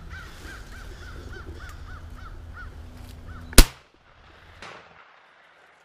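A quick run of crow caws, about three a second, then a little over three and a half seconds in a single loud 12-gauge shotgun blast, a Stoeger P3500, after which the cawing stops. The shot is fired at a crow coming in to the call and drops it.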